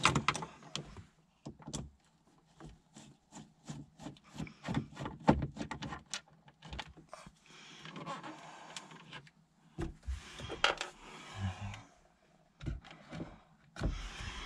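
A screwdriver turning small screws out of plastic dashboard trim, heard as a run of small irregular clicks and scrapes of the tool and plastic, with a short stretch of softer rubbing partway through.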